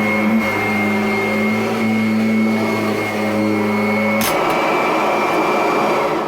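Kirby Avalir upright vacuum running steadily on a fresh drive belt, with a high motor whine and no belt slip. About four seconds in, a click comes and the low hum gives way to a rougher rushing sound. Right at the end it is switched off and starts to wind down with a falling whine.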